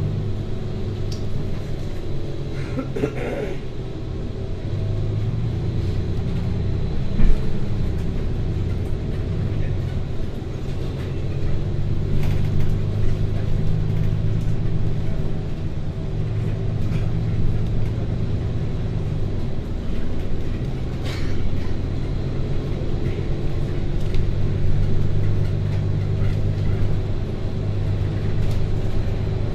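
Steady engine and road drone of a moving vehicle heard from inside the cabin, its engine note shifting now and then. There is a short knock about seven seconds in and a few faint clicks.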